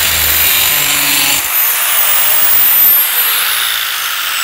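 Angle grinder in a sharpening jig grinding the edge of a steel lawn mower blade, a high motor whine over the scraping of the disc on the metal. About a second and a half in the grinding stops, and the grinder's whine slowly falls in pitch as it winds down.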